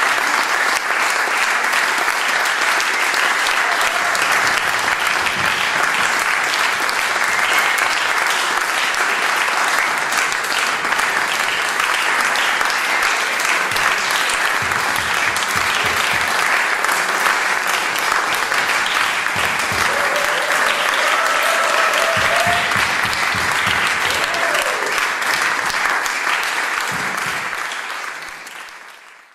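Concert audience applauding steadily, fading out over the last couple of seconds.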